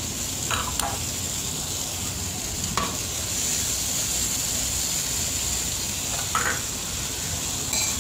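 Sliced meatballs sizzling in hot oil with scrambled egg and spice paste in a frying pan, a steady hiss. A metal spatula stirs them, scraping the pan a few times.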